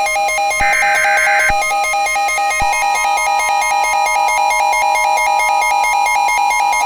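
Synthesized Emergency Alert System alert tones, announcing an incoming tornado warning. Two short warbling data-like bursts come in the first second and a half, over a fast-pulsing multi-tone alarm beep. A steady tone joins it about two and a half seconds in.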